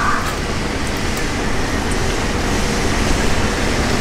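Steady low rumble and rushing noise of a fishing boat's engine running. A higher whine fades out about a quarter second in.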